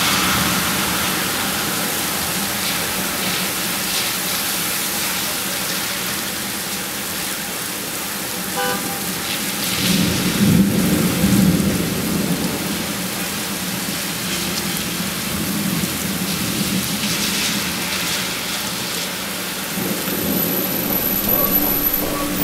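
Heavy rain pouring on a city street in a severe storm, a steady hiss, with a louder low rumble swelling up about ten seconds in.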